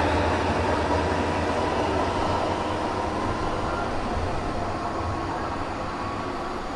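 PKP Intercity ED161 (Pesa Dart) electric multiple unit moving away along the platform track. Its rumble, with a faint steady whine, fades evenly as it recedes.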